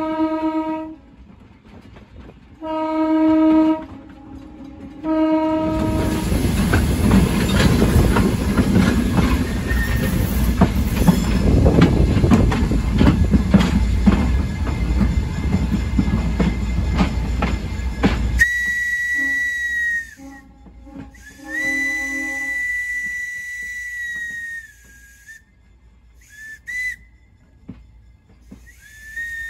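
Horn of a 65-ton Vulcan diesel locomotive blowing for a grade crossing: a long blast ending about a second in, then a shorter one and a short one. Then loud rumbling and clattering of the moving train's wheels on the rails, which stops suddenly. Then a single high whistle note sounds in several separate blasts, each dipping in pitch as it cuts off.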